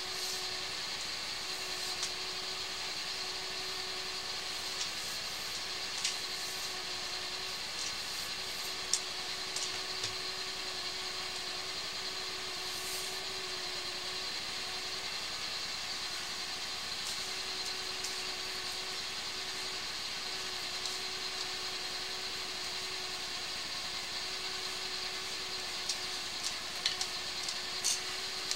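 Sewer hydro-jetter running steadily while jetting roots out of a sewer main: an even mechanical hum with a constant mid-pitched tone. A few faint clicks come and go, mostly near the end.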